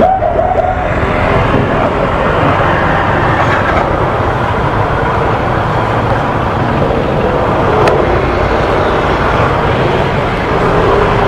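Small single-cylinder motorcycle engine running at low speed while the bike is being parked, heard through a helmet-mounted action camera, with steady traffic noise.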